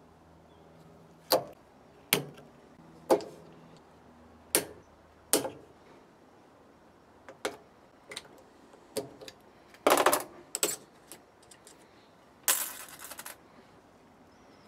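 Sharp metallic clicks and clinks as circlip pliers work the retaining circlip out of a brake master cylinder's bore: five loud snaps in the first few seconds, then lighter clicks, a quick cluster about ten seconds in and a longer metallic rattle near the end.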